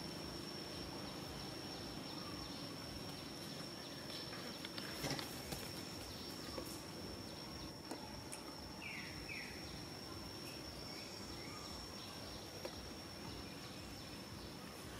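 Outdoor ambience with an insect's steady high-pitched drone that stops near the end. There are a few soft clicks about a third of the way in and two quick falling chirps around the middle.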